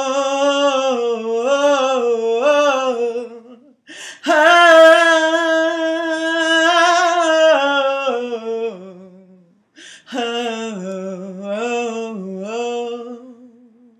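One unaccompanied voice singing wordless 'ooh' lines. A wavering, sliding phrase comes first, then a long held higher note from about four seconds in, and after a short break near ten seconds another wavering phrase.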